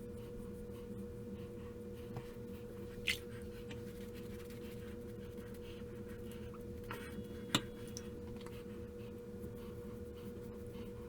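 Faint scraping strokes of a 1930s open-comb double-edge safety razor drawn through lather and stubble, over a steady hum. Two sharp clicks come, about three seconds in and again past seven seconds.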